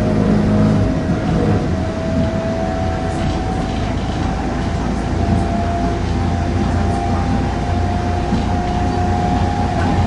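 Circumvesuviana electric commuter train heard from inside the carriage while running: a steady low rumble of the wheels and running gear, with a thin whine that slowly rises in pitch and a few faint clicks.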